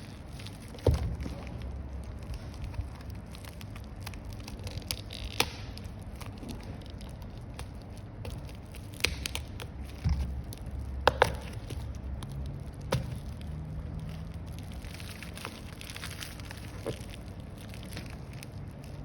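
Handling noises from unpacking: scattered clicks and knocks, with dull thumps about a second in and again near the middle, over a steady low background hum.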